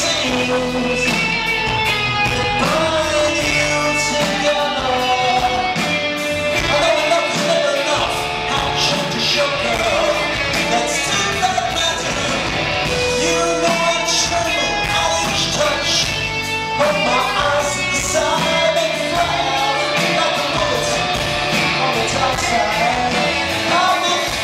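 Live rock band playing: a male singer over electric guitars, bass guitar and drums, heard from the audience.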